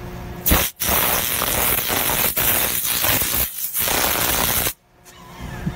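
High-voltage electric arc across power-line conductors, a loud hiss that starts about half a second in, falters twice, and cuts off suddenly near the end.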